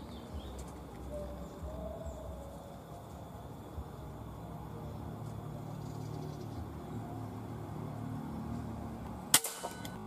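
A low steady rumble, then an air rifle fired once about nine seconds in: a single sharp crack followed by a couple of short faint clicks.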